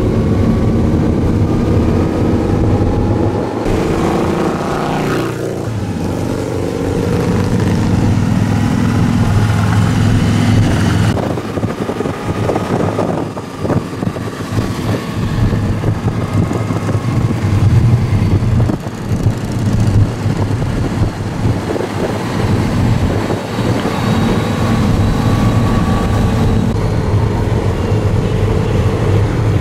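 Motorcycle engines running in a steady drone, the pitch rising and falling now and then.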